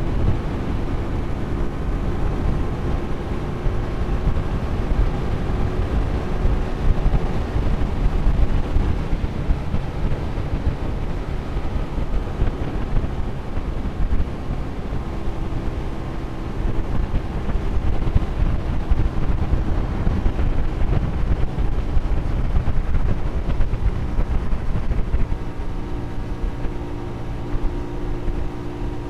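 Hyosung 250cc motorcycle running at highway cruising speed, a steady engine and road rumble with heavy wind buffeting on the bike-mounted camera's microphone. The engine note shifts a little a few times.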